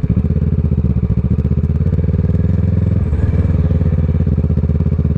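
Kawasaki ER-6n's parallel-twin engine, fitted with a Scorpion exhaust, running at low, steady revs as the motorcycle is ridden slowly over rough ground.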